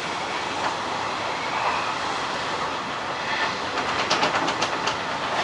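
Hanshin 1000 series electric train running at speed, a steady rumble of wheels on rail. About four seconds in, a quick run of sharp clicks as the wheels pass over rail joints or points.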